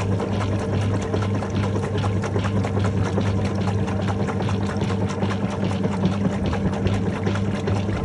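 GE Profile top-load washing machine agitating a load of towels: water sloshing and splashing in the tub over a low, steady motor hum.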